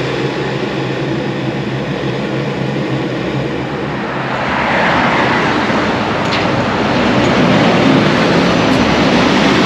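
Electric kettle heating up with a steady rushing rumble. About four to five seconds in, busy road traffic takes over, a little louder, with vehicles passing close.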